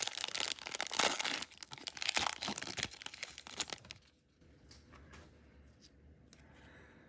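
Wrapper of a Panini Prizm trading-card pack being torn open and crinkled for about the first three and a half seconds, then only a few faint clicks.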